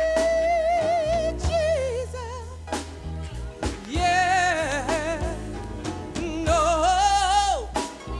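Gospel song: a solo female voice sings long, melismatic held notes with wide vibrato over low sustained bass notes, with short breaths between phrases about three seconds in and near the end.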